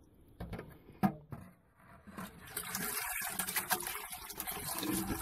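Puddle water splashing and pouring from a perforated metal scoop into a plastic bucket while frog eggs are scooped out. A couple of light knocks come first, then about two seconds in a steady pour that grows louder.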